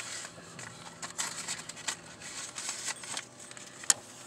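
Handling noise on a phone's microphone: scattered light crackles and rustling clicks, with one sharper click about four seconds in.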